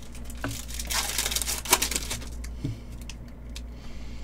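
Plastic-foil card pack wrapper and trading cards being handled, a crinkling and rustling that is loudest in the first two seconds, with one sharp snap partway through.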